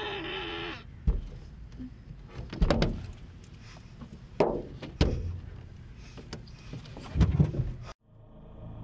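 A woman's hands slamming against a car's windscreen and body, heard from inside the car: five or so heavy thumps a second or more apart, after a shrill wavering cry at the start. Near the end it cuts suddenly to a steady low musical drone.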